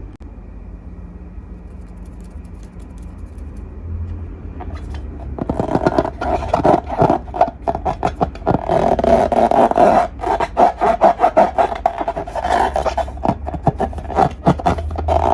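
Slime being squeezed and worked by hand, a dense run of sticky crackles and pops that starts about five seconds in after a quieter stretch.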